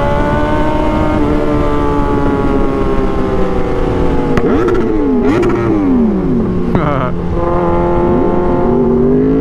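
Yamaha R6's inline-four engine running under way, heard from the rider's seat with wind rushing past. The engine note eases down slowly, makes a couple of quick swoops in pitch about halfway through, then holds steady at a lower pitch and starts to climb near the end.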